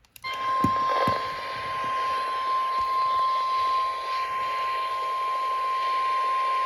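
NOAA Weather Radio 1050 Hz warning alarm tone played through a weather radio receiver: one steady, unbroken high-pitched tone that starts a moment in, over a hiss of radio static. The tone signals that a warning message is about to be read.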